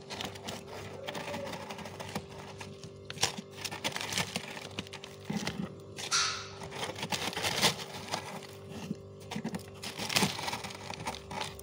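Thick, powdery freezer frost being crunched and scraped by hand: a run of irregular crisp crunches, with a longer scrape about six seconds in.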